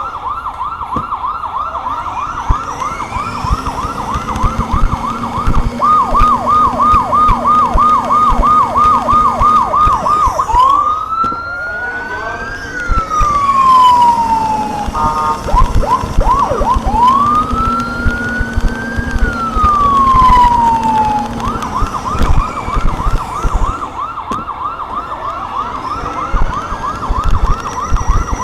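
Vehicle electronic siren cycling through its tones. It starts with a fast warbling yelp, then a slower yelp, then two long wails that rise and fall with a short burst of blips between them, and the fast yelp returns near the end. Engine and road noise run underneath.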